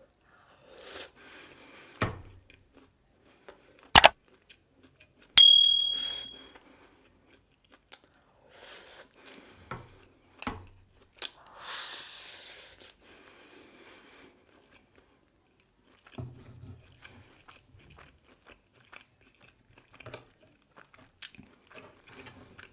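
Close-miked eating of grilled pork sekuwa and rice: chewing and crunching, with a few sharp clicks in the first six seconds, one of them ringing briefly.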